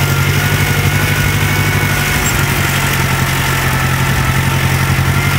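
Four-wheeler (ATV) engine running steadily at low speed while it creeps along, a low, even engine hum with a thin steady whine above it.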